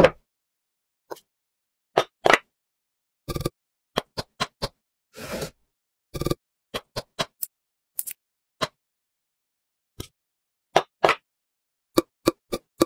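A series of short, sharp clicks and knocks on wood, one at a time with dead silence between, about two dozen in all and irregularly spaced: stop-motion sound effects for nails and boards of a pine box popping into place. The loudest knocks come right at the start and about three-quarters of the way through.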